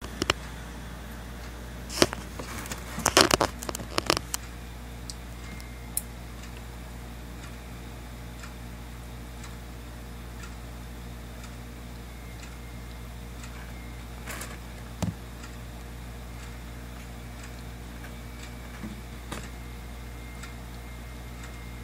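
A pet crab eating an anchovy: sharp clicks and ticks, a dense flurry about two to four seconds in, then scattered single clicks, over a steady low hum.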